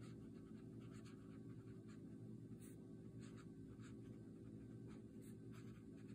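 Faint, irregular scratching of a Kaweco Student fountain pen's extra-fine steel nib writing cursive on legal pad paper, a few short pen strokes a second, over a low steady hum.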